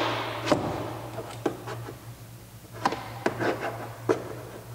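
Plastic trim removal tool prying at the clips of a Hyundai i30 rear door panel: a fading rustle at the start, then a scattered series of short, sharp plastic clicks and creaks as the tool works along the panel edge, over a faint steady low hum.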